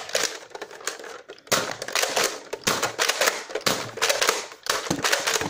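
Plastic clicks and clatter from a Nerf Recon blaster being handled, its priming slide worked back and forth, with many quick irregular clacks.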